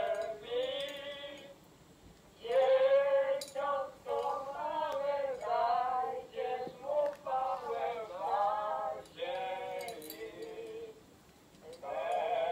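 Singing from a small, tinny speaker in a musical Christmas decoration, in phrases with short breaks about two seconds in and again near the end.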